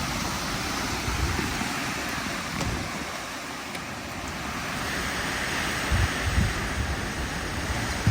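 Strong storm wind blowing hard and steadily, with gusts buffeting the microphone, the buffets stronger near the end.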